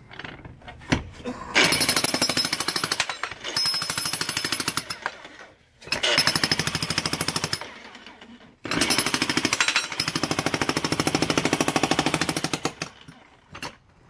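Jackhammer with a chisel bit breaking up thick concrete under pavers: a fast, even hammering that runs in three stretches with short pauses between them, the longest near the end.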